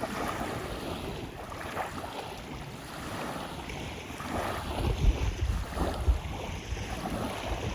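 Wind buffeting the microphone over the sound of water moving around a small boat on a lake, in uneven gusts and swells.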